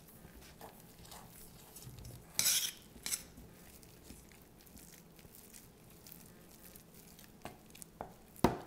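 A metal spoon stirring a thick urad dal flour-and-water batter in a stainless steel bowl: quiet scraping, with a few sharper clinks of the spoon against the bowl, the loudest about two and a half seconds in and another near the end.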